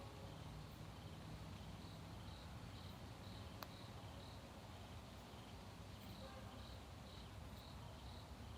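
Crickets chirping faintly in a steady, even rhythm, with one sharp click about three and a half seconds in.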